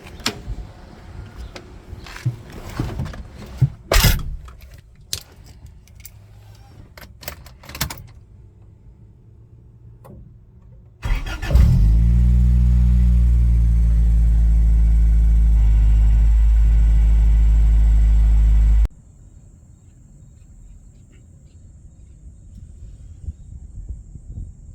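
Car engine started and idling: a short rising start about eleven seconds in, then a loud steady low running sound for about seven seconds that cuts off abruptly. Before it, a series of clicks and knocks, like a car door and keys being handled.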